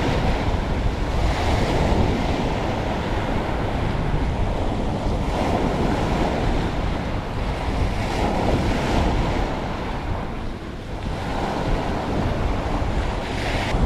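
Rough, choppy surf washing onto the beach, mixed with strong wind buffeting the microphone. It is a steady roar that swells and eases in surges.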